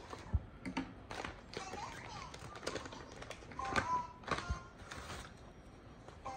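Paper bag and tissue wrapping crinkling and rustling as takeaway food is unpacked by hand, with irregular sharp clicks and taps.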